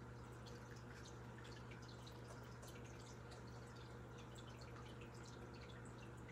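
Quiet room tone: a steady low electrical hum with faint, scattered small ticks.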